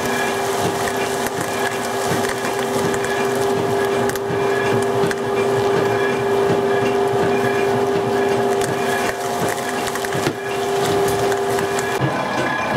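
Motor-driven grinder crushing walnut kernels into meal for walnut oil: a steady motor hum under dense crackling from the nuts breaking up. The hum stops near the end.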